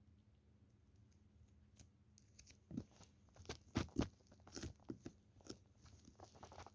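Slime being squeezed and worked by hand. After about two and a half seconds of near quiet, it gives irregular crackling clicks and pops.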